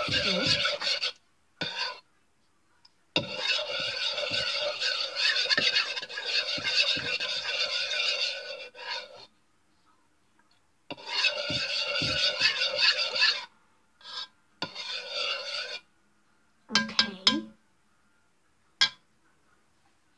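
A utensil scraping round and round inside a mixing bowl, stirring glue and water together. It comes in several stretches of a few seconds with short pauses between them, then a few single scrapes near the end.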